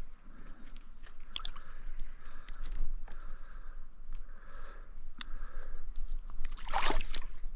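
Crackling rustle and sharp clicks of clothing and gear rubbing and knocking close to a body-worn action camera as the angler handles the landing net. The noise comes and goes unevenly, with a louder cluster of clicks about seven seconds in.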